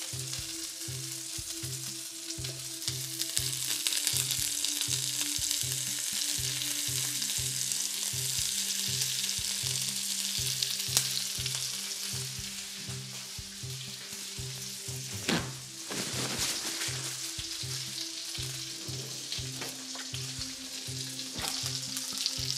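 Salmon and skrei fillets sizzling steadily skin-side down in a frying pan of oil, with butter added and browning into brown butter. There is one brief knock about fifteen seconds in.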